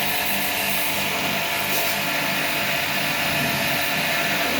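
A machine running steadily: a whining motor hum over a loud rushing hiss.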